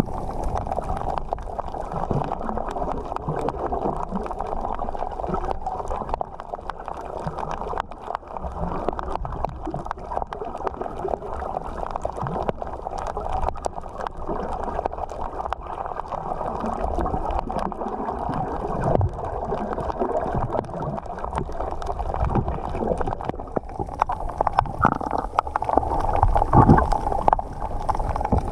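Underwater ambience heard through a GoPro's microphone beneath the surface: a steady muffled rush and slosh of water with a low rumble and a constant scatter of small clicks.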